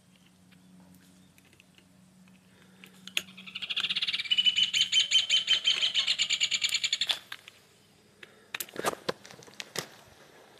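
A bird calling in a loud, rapid trill of about ten notes a second for roughly four seconds, starting about three seconds in and cutting off abruptly. A few footsteps on dirt follow near the end.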